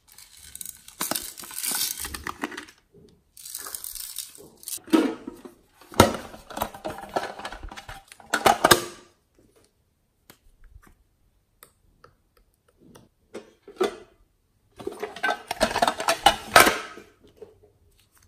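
Hard plastic containers and small cosmetic cases handled and opened by hand: several bursts of scraping, rattling and clicking, with a few single clicks in a quieter stretch in the middle.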